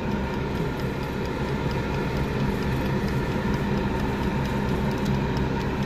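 Black+Decker air fryer running: a steady fan whir with a low hum, and faint regular ticking from its mechanical timer.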